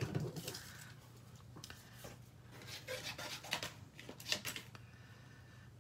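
Faint handling of paper and craft supplies on a work table: scattered rustles and small clicks, a cluster of them in the middle, over a steady low hum.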